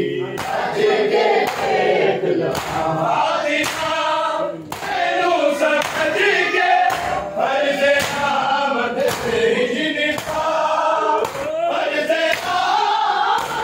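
A group of men chanting a Shia mourning chant (noha) in unison while beating their chests in time (matam), a sharp open-hand slap on the chest landing about once a second.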